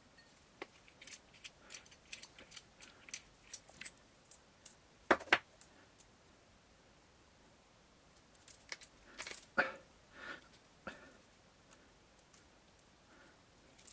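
Small, sharp metallic clicks and taps of hand-work on the enlarger's wiring and small parts, a run of light ticks followed by a louder double knock about five seconds in and another cluster of clicks and knocks later on.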